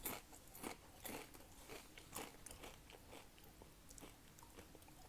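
Faint, close crunching of chips being bitten and chewed, about two crunches a second at first and growing fainter.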